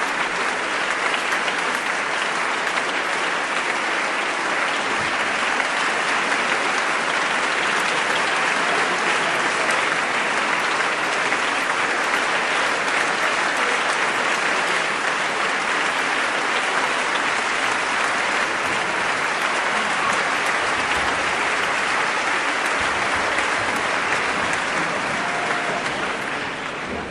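Large concert audience applauding steadily, thinning out near the end.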